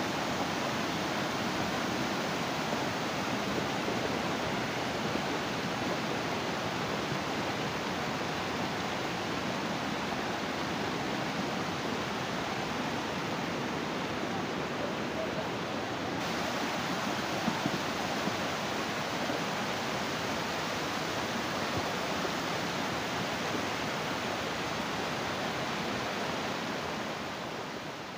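Steady rushing of muddy flash-flood water pouring over stones and debris, fading near the end.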